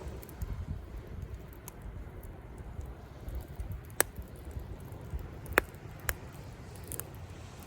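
Wood campfire crackling, with several sharp pops of burning wood, the loudest in the second half. Underneath runs a low steady rumble of faint surf.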